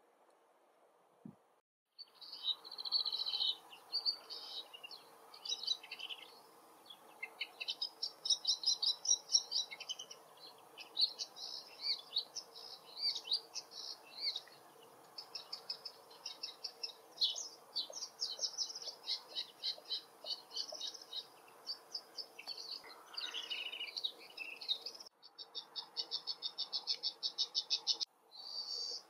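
Woodchat shrikes chattering: a long stretch of fast, varied high notes. About 25 s in, after a break, a rapid, evenly spaced series of notes follows.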